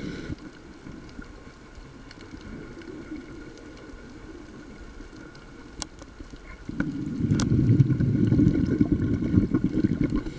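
Scuba diver's exhaled bubbles from the regulator underwater: a quieter stretch, then a loud low bubbling rumble that starts about two-thirds of the way in. Two sharp clicks come just before and during the bubbling.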